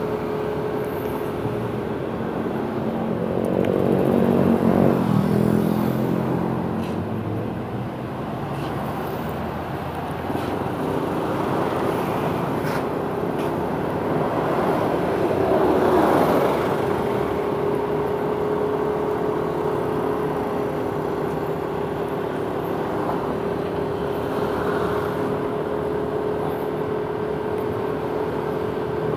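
Motorcycle engine running steadily while riding through city traffic, with road and traffic noise. The sound grows louder about four seconds in and again around sixteen seconds.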